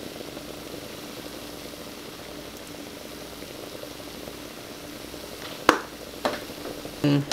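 Vegetable fried rice sizzling softly in a frying pan, a steady hiss. Near the end come two sharp clicks about half a second apart, then a brief low sound.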